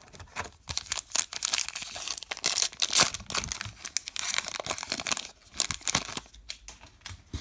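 Foil wrapper of a baseball card pack being torn open and crinkled by hand, with a steady run of irregular crackles and rustling.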